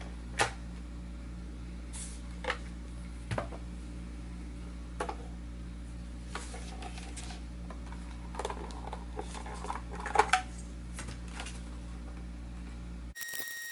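Light clicks and taps of small parts and tools being handled, scattered over a steady low hum, with a cluster of louder clicks about ten seconds in. The hum cuts off abruptly near the end.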